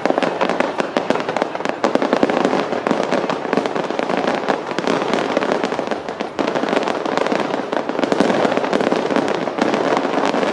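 Fireworks display: a rapid, continuous barrage of aerial shells bursting and crackling, many reports a second with no pause.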